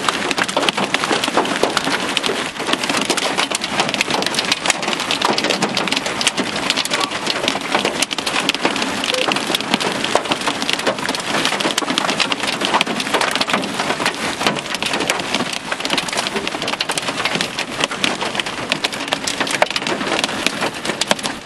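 Hail and heavy rain pelting down in a storm: a loud, steady dense patter full of sharp clicks from hailstones striking.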